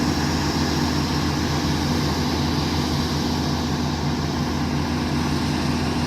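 An engine running steadily at a constant speed, with an even drone that neither revs up nor drops.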